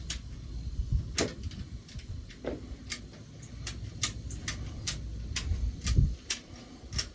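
Sharp, irregular clicks and knocks of hand work on a New Holland RB560 round baler during a bearing and roller repair, over a low rumble.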